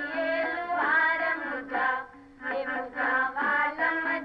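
Background music of a voice singing a wavering melody, Indian in style, with a short break about two seconds in.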